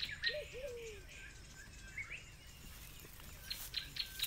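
Small birds chirping with short, quick calls over a steady outdoor background, with a few brief clicks near the end.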